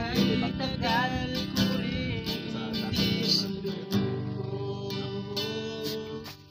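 Acoustic guitar strummed in chords, with a voice singing along in the first couple of seconds. The sound drops away briefly just before the end.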